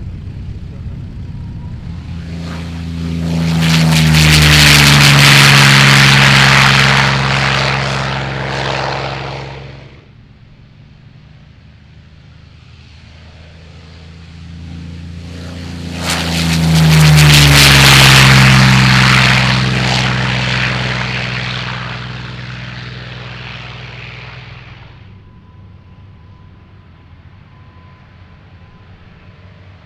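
Piston-engined propeller warbirds at full power on takeoff runs, passing one after another. There are two loud passes, each with an engine note that drops in pitch as the aircraft goes by: the first stops abruptly and the second fades away. Near the end only a quieter engine with a faint steady whine remains.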